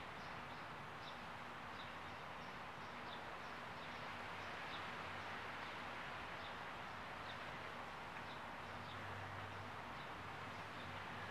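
Steady faint background hiss with short, faint high chirps repeating about twice a second, like a small bird chirping.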